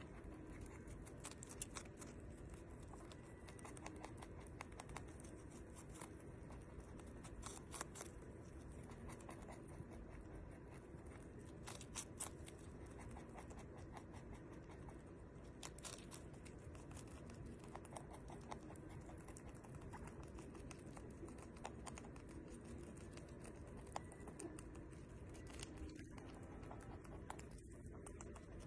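Holland lop rabbit chewing strawberries: faint, quick, irregular clicks of its teeth and mouth over a low background hiss.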